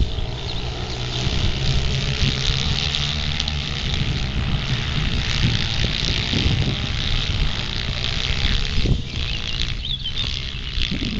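A pack of Honda NSF racing minibikes' small engines buzzing as they lap the circuit, revving up and down through the bends in a continuous, overlapping drone.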